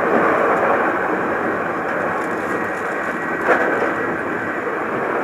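Running noise inside a moving Hankyu Kyoto Line train car: a steady, loud rumble, with one brief knock about three and a half seconds in.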